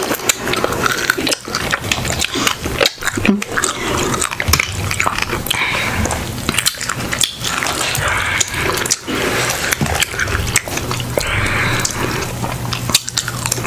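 Two people eating seafood boil close to the microphone: continual wet chewing and lip-smacking of shrimp and mussels in sauce, full of quick sharp clicks.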